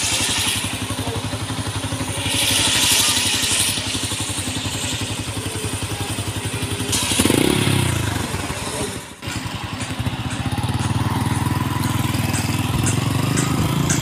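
Motorcycle engine idling with fast, even pulses. About seven seconds in it is revved briefly, rising and falling in pitch, then it runs on steadily and a little louder.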